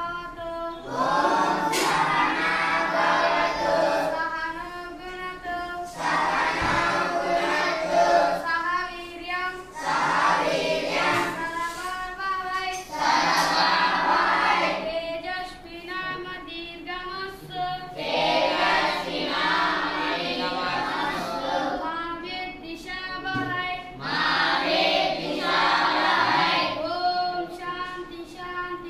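A group of children singing a prayer together in unison, in phrases of a few seconds with short pauses between.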